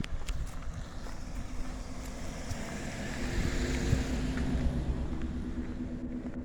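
A car passing on the road: tyre and engine noise swell to their loudest about halfway through and then fade, over a low rumble of wind on the microphone.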